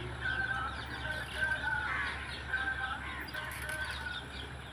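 Tractor engine running steadily in the distance as a low drone, under a string of short, high-pitched notes that come and go every fraction of a second.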